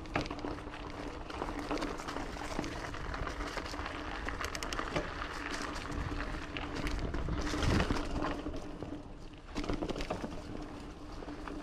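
Giant Fathom 2 mountain bike rolling along a dirt singletrack trail: steady tyre noise with frequent small clicks and rattles from the bike over the ground, and a faint steady hum underneath.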